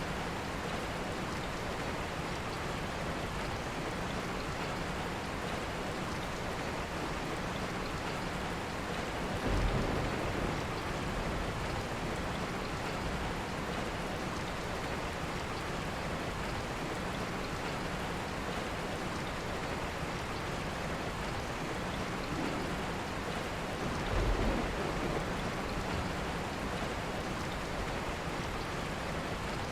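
Steady rainfall hissing evenly, with two brief low rumbles, one about ten seconds in and another roughly fifteen seconds later.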